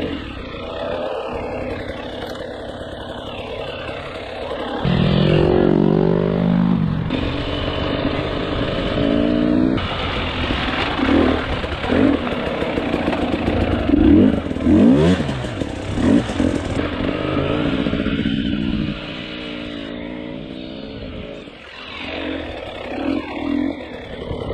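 2019 KTM 300 XC-W TPI single-cylinder two-stroke dirt-bike engine revving up and down repeatedly as the bike is ridden along a rough trail, with clatter from the bike over the ground. The revs are highest around the middle and ease off near the end.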